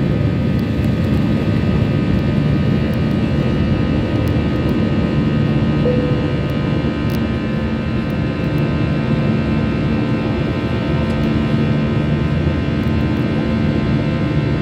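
Airbus A320-214 jet engines heard from inside the cabin during the climb after takeoff: a steady rush of engine and air noise with several steady engine tones running through it.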